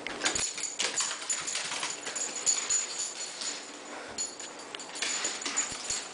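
A shih tzu scrambling across a hardwood floor with a plush toy: an irregular run of scrabbling clicks and rustles from its claws and the toy, louder in the first half.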